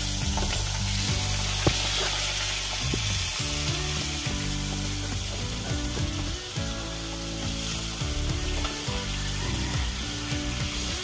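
Turmeric-and-salt-rubbed fish pieces sizzling steadily in hot oil in a steel kadai, with the metal spatula scraping and clicking against the pan as the pieces are turned.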